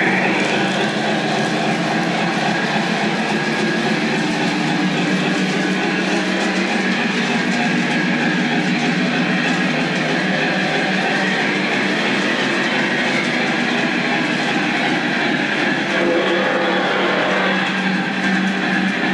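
Lionel Legacy Norfolk & Western Y6b 2-8-8-2 model steam locomotive running on three-rail track: a steady rolling rumble of wheels and drive with a constant hum.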